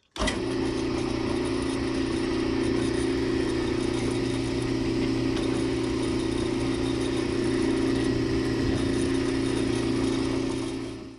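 Drill press motor starting suddenly and running at a steady pitch while the drilled hole is chamfered, then fading out near the end as it is switched off and spins down.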